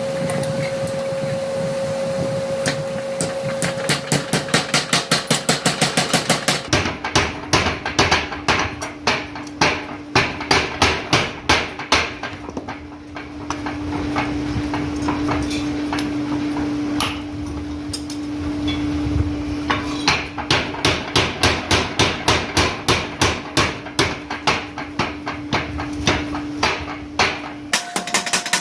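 A 100 kg mechanical power hammer pounding hot steel in rapid, even blows, about five a second, over a steady hum. The blows are lighter for the first few seconds, then heavy and regular, with brief pauses as the work is moved.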